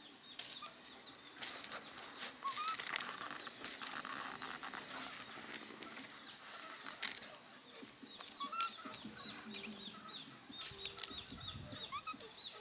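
Crushed gravel clattering and crunching as stones are handled and shifted by hand, in irregular bursts of small sharp clicks with short pauses between.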